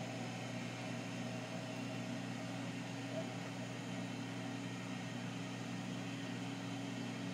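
Air fryer running while it cooks bacon: a steady fan hum that holds level throughout.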